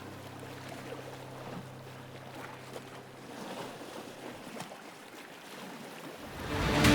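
Sea waves washing on a beach, added as a sound effect, as the background music fades out; near the end a loud swell of sound rises as the music comes back in.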